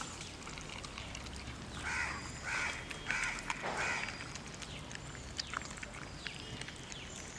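A crow cawing four times in quick succession about two seconds in, over scattered wet clicks of a dog chewing raw chicken.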